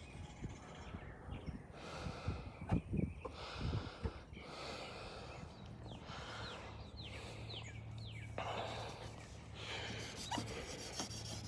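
An abrasive pad is being scrubbed by hand across a plastic headlight lens in repeated strokes, with a person's heavy breathing and a few short squeaks. The scratchy rubbing is the sound of the pad still cutting the old coating; the user thinks the lens is close to done once it can no longer be heard.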